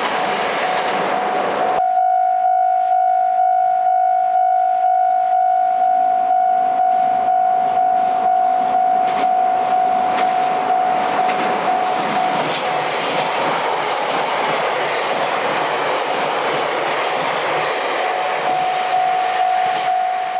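A train passes a railway level crossing, its wheels clattering over the rail joints, while the crossing's warning bell rings on and on at about two strokes a second.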